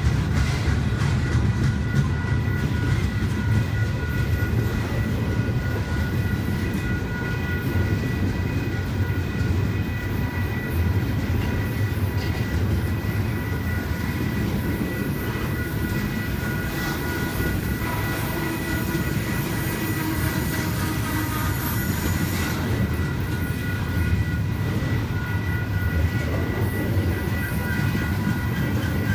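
Double-stack intermodal well cars of a freight train rolling past close by: a continuous heavy rumble of steel wheels on rail, with a steady high-pitched tone over it.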